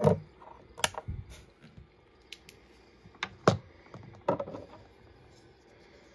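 A handful of sharp clicks and light knocks, spread out with quiet between: a desk lamp's inline cord switch being clicked off and a folding knife handled on a wooden desk.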